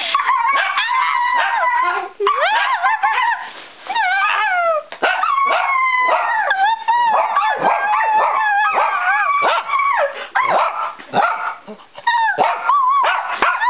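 Small dogs barking and giving high calls that rise and fall in pitch, one after another almost without pause.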